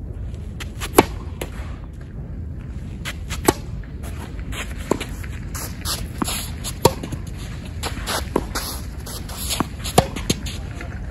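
Tennis rally: a serve struck about a second in, then a sharp pop of a racket on the ball every couple of seconds as the two players trade shots, over a steady low background rumble.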